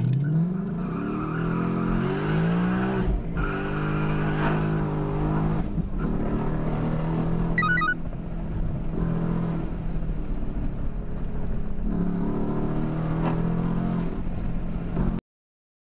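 Car engine heard from inside the cabin, revving up through a few gear changes with rising pitch, then running at a steady drone. A brief electronic beep sounds about eight seconds in, and the sound cuts off suddenly near the end.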